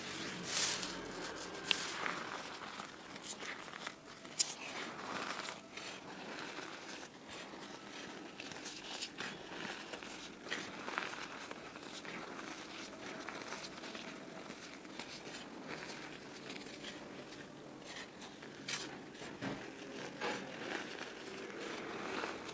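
Hands digging into and sifting a pile of crumbled, green-dyed reformed gym chalk powder: soft, continuous crunching and rustling with scattered small crackles. There are a few sharper clicks in the first few seconds.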